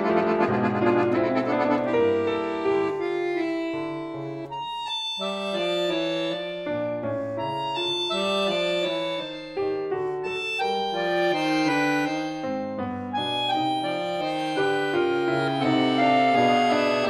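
Piano and accordion playing together in a modern classical duo piece, moving through changing chords. The texture is dense for the first couple of seconds, then thins, with brief dips about five and ten seconds in.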